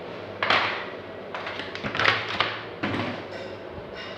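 Cardboard box flaps rustling and scraping against a plastic toy money bank as it is worked out of its box, in several short bursts, the loudest about half a second and two seconds in.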